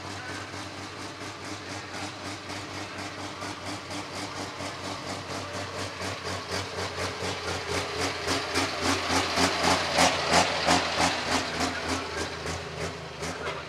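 Diesel pulling tractor engine idling with a steady low drone and a regular pulsing beat a few times a second, growing louder toward the middle and then easing off.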